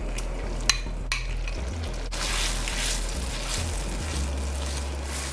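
Tomato juice sizzling in a hot pan as tomato paste is scraped in with a metal spoon, with two sharp clinks of the spoon in the first second or so. After that comes an even sizzle as the paste is stirred in with a wooden spoon.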